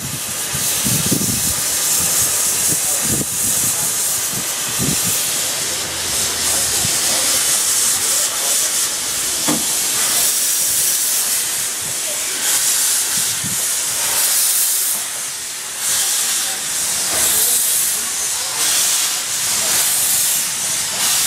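Steam hissing from the cylinder drain cocks of Talyllyn Railway No. 6 'Douglas', an Andrew Barclay 0-4-0 well tank steam locomotive, as it moves slowly along the platform. The hiss is loud and continuous, swelling and fading in repeated pulses in the second half.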